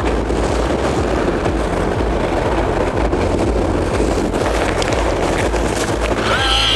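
Steady wind and sea noise aboard a small fishing boat in rough water, with a heavy low rumble and wind buffeting the microphone. Music comes in near the end.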